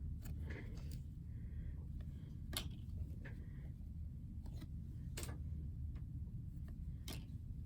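A trading-card pack being opened by hand and the cards handled: sparse sharp clicks and soft rustles of the wrapper and cards, over a low steady hum.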